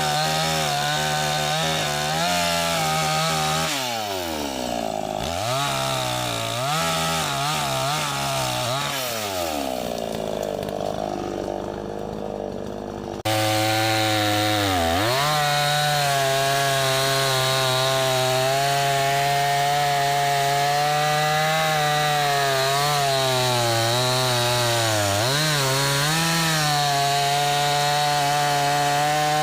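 Chainsaw running at high revs and cutting through a thick tree branch, its engine note sagging each time the chain bites into the wood and then climbing back. About thirteen seconds in, the sound jumps abruptly to a louder, steadier run, with two brief dips later.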